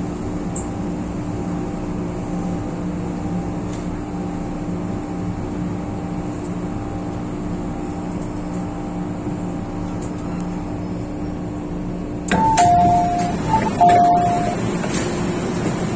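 Steady interior hum of an MTR M-Train, then about twelve seconds in a two-note electronic chime, a short higher note and a longer lower note, sounds twice: the train's door chime at a station stop.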